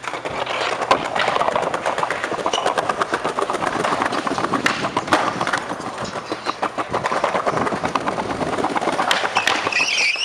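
Skateboard wheels rolling on a sidewalk of paving slabs: a steady rumbling noise with rapid clicks as the wheels cross the slab joints, and sharp knocks of the board on the ground.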